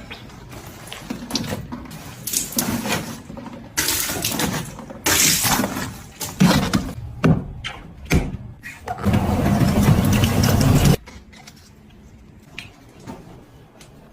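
Washing machine running, with water rushing into it in uneven surges. The loudest steady rush cuts off abruptly about eleven seconds in, leaving a faint hum.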